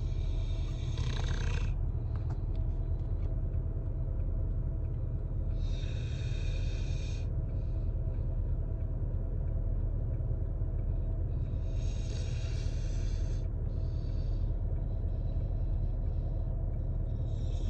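Dog snoring while asleep: a steady low rumble, with a loud hissing breath about every six seconds and softer breaths in between.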